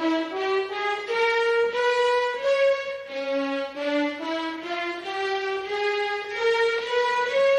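Slow, sad violin music, two lines of held notes moving step by step, about two notes a second, as in a television drama score.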